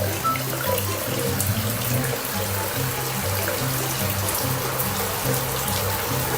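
Background music with a steady, repeating bass line over a constant hiss.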